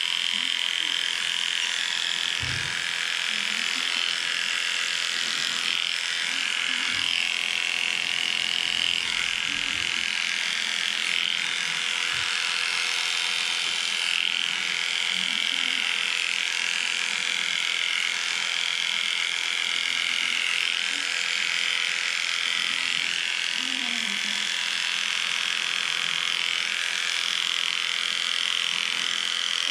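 Electric dog grooming clippers running steadily as they shave a pug's coat, a high whine that wavers a little as the blade works through the fur.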